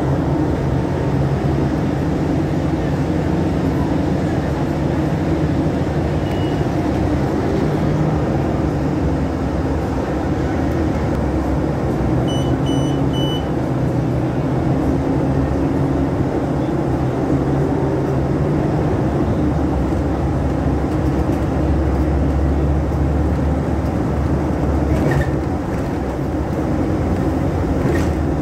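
City bus engine running steadily, heard from inside the passenger cabin as a continuous low drone. About twelve seconds in, three short high electronic beeps sound in a row.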